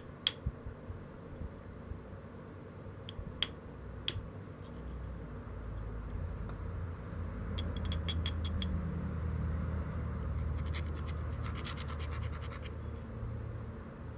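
A stone abrader scraped along the edge of a dark knapped stone biface. The scratching starts with a few sharp clicks and turns, in the second half, into a quick run of fine scraping ticks over a low rumble.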